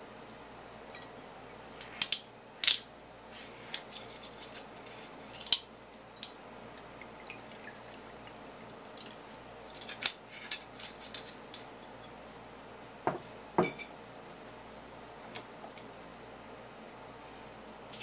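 A sake bottle and a small ceramic cup handled on a wooden counter as sake is poured: scattered light clinks and knocks, a few sharp ones in the first six seconds and a pair of duller knocks about thirteen seconds in.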